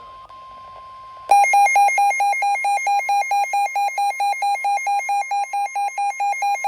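A faint steady tone, the weather radio warning alarm tone, then about a second in a weather radio receiver's alert alarm starts: loud, rapid beeping that alternates between two pitches, several beeps a second. It signals an incoming severe thunderstorm warning.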